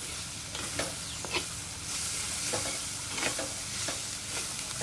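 Curry sizzling in hot oil in a pan while it is stirred with a ladle, with a handful of short sharp clinks and scrapes of the ladle against the pan.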